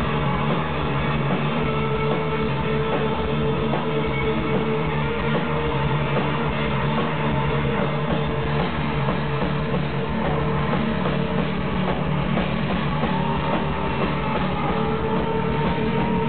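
A live heavy noise-rock band plays loudly and without a break: distorted electric guitar over a drum kit, with long held guitar notes.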